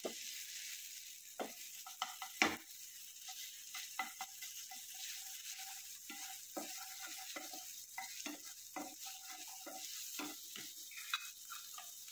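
Wooden spatula stirring and scraping garlic and green chili chutney sautéing in hot oil in a coated frying pan: a steady sizzle with repeated short knocks and scrapes of the spatula on the pan, the loudest knock about two and a half seconds in.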